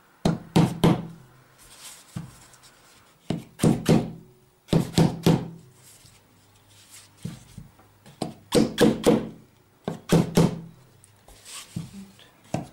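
Small hammer tapping the wooden corner wedges (keys) of a canvas stretcher frame, in short bursts of two or three sharp taps several times over, driving the wedges in to tighten the canvas.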